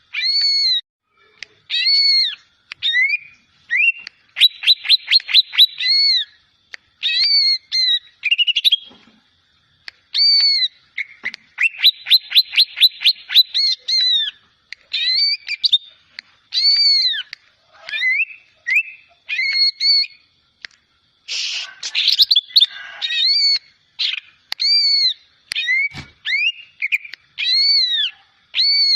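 A young cucak ijo (green leafbird) practising its still-immature song: a string of clear arched whistles, two quick rattling trills and a brief harsher scratchy chatter about three-quarters of the way through.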